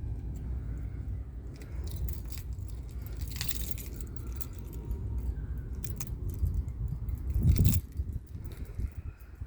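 Car keys jangling in a series of light metallic clicks and jingles, with a louder clunk about three-quarters of the way in, over a steady low rumble.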